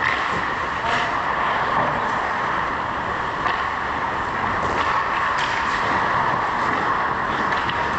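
Steady background hum of an indoor ice hockey arena, with a few faint, distant knocks from play at the far end of the rink.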